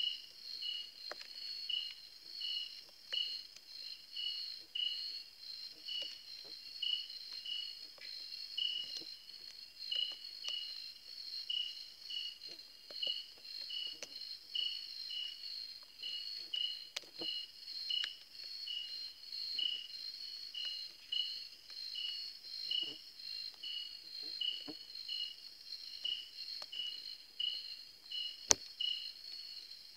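Night insect chorus, crickets and similar insects: a steady high trill with a lower chirp repeating about every second. Faint scattered ticks run through it, and one sharp click comes near the end.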